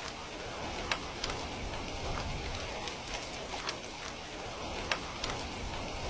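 Heavy rain falling steadily, an even hiss with scattered sharp taps of individual drops striking a surface.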